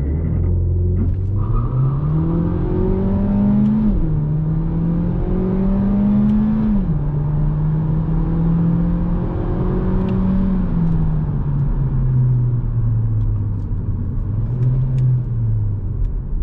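Seat Leon's 1.5 eTSI turbocharged four-cylinder petrol engine at full throttle in a 0–100 km/h run, heard inside the cabin: the revs climb, drop as the DSG gearbox shifts up about 4 s in and again about 7 s in, climb once more, then hold steady and sink toward the end as the throttle is eased.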